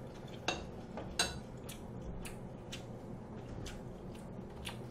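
A person chewing a mouthful of food close to the microphone: soft wet mouth clicks, about two a second.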